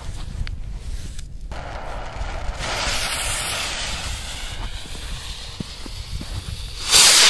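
A lit firework fuse hissing and sputtering at the base of a single-shot firework tube. Near the end comes a sudden loud burst as the firework launches.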